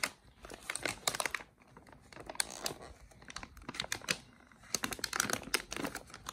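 Fingers picking and pulling at the tear strip on a plastic food pouch: irregular small clicks and crinkles of the packaging.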